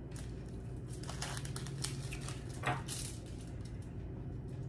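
Light clicks, taps and rustling from hands handling gingerbread house pieces and candy on a foil-covered table, with a sharper knock about two and a half seconds in, over a steady low hum.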